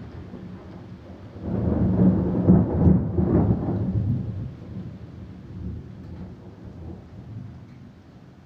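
Thunder rumbling: a low rolling rumble that swells about a second and a half in, peaks, and dies away slowly over several seconds.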